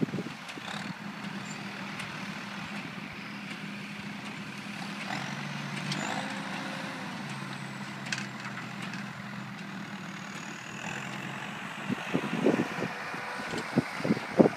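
Farm tractor's diesel engine running steadily, its note shifting a little midway, with a few louder irregular bursts near the end.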